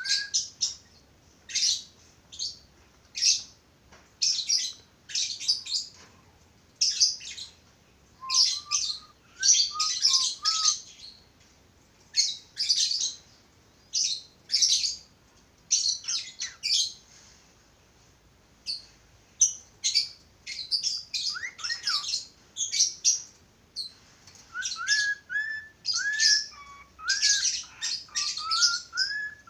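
Budgerigars calling: repeated short, sharp chirps, with stretches of wavering warbling about a third of the way in and through the last third.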